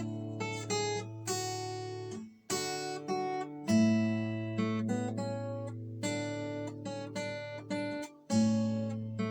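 Yamaha steel-string acoustic guitar played solo, freely improvised: plucked and strummed chords ring out and decay over a sustained low bass note. The strings are briefly damped twice, once about two seconds in and once near the end, each time followed by a fresh, louder chord.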